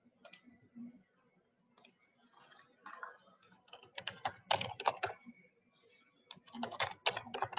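Computer keyboard being typed on in quick flurries of clicks, busiest about four seconds in and again near the end.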